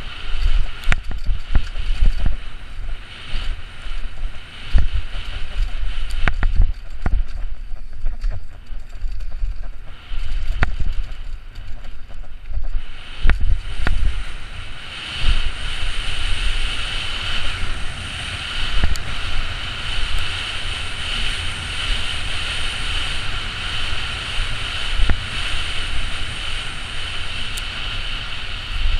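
Downhill mountain bike ridden fast down a rough forest trail, heard from a helmet-mounted camera: wind buffeting the microphone, with repeated knocks and rattles of the bike over roots and rocks. About halfway through, the knocks thin out and a steady high-pitched whir takes over.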